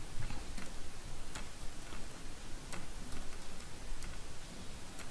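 Computer keyboard keys clicking irregularly as text is typed, a few sharper clicks standing out over a steady background hiss.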